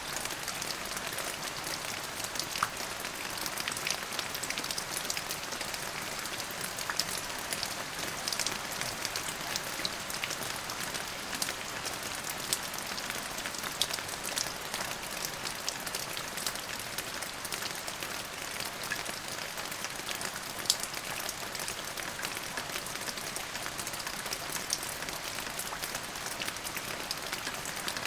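Steady rain falling on a surface: an even hiss with many distinct drop ticks scattered through it.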